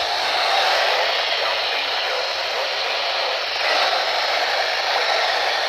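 Steady hiss of radio static from a weather-radio receiver, an even noise with no tones or voice in it.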